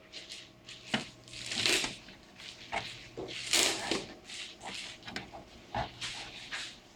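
Scattered light handling sounds in a small room: rustling swells and a few short knocks and clicks.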